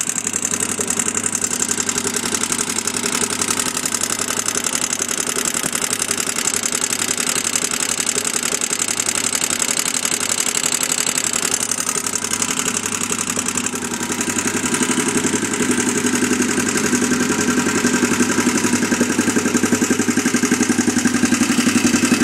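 2001 Honda 400EX ATV's single-cylinder four-stroke engine running steadily, showing the noise problem the owner has been dealing with. It gets a little louder about two-thirds of the way in.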